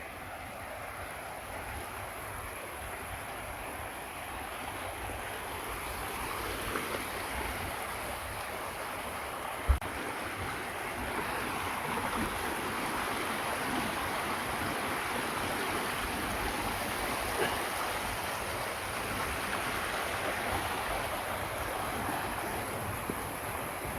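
Steady rush of flowing water from a mountain stream or waterfall, growing a little louder over the first half. A single sharp knock about ten seconds in.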